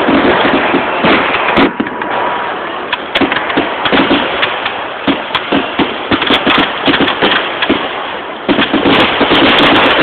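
Fireworks going off in a dense run of rapid crackling pops and bangs, swelling louder again about eight and a half seconds in.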